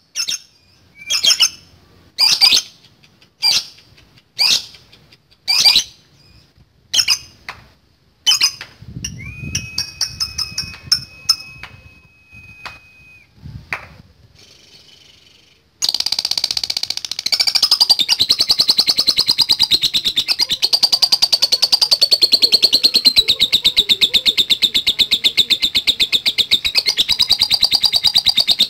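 Lovebird calling: sharp high chirps about once a second, then, about halfway through, a long unbroken rapid chattering trill, the lovebird's 'ngekek panjang' (long chatter).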